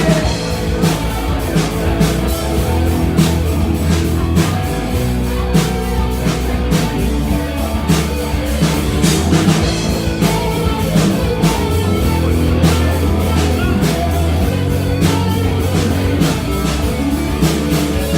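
Live rock band playing an instrumental passage between vocal lines: electric guitar and bass over a drum kit keeping a steady beat.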